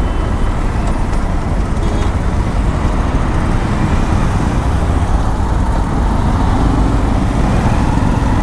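Road traffic in a slow-moving jam heard from a motorcycle filtering between cars and other motorbikes: engines running and a steady low road noise.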